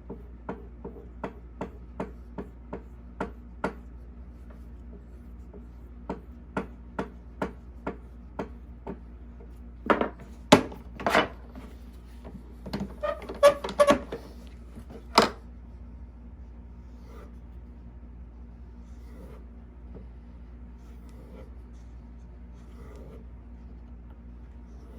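Hook knife blade drawn along a sharpening stick in quick, even strokes, about two to three a second, in two runs. Several louder knocks and clatters follow around the middle, then only faint handling sounds.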